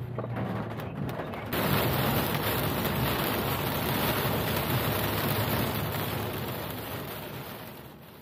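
Rushing water, a dense steady rush that cuts in suddenly about a second and a half in and fades away near the end. Before it there is a low hum.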